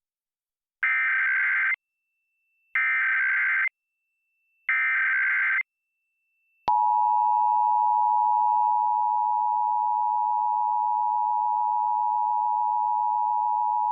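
Emergency Alert System test tones: three one-second bursts of the SAME digital header, a warbling data tone, each followed by a short gap. About 6.7 s in, after a click, the steady two-tone EAS Attention Signal (853 Hz and 960 Hz together) begins and holds unbroken.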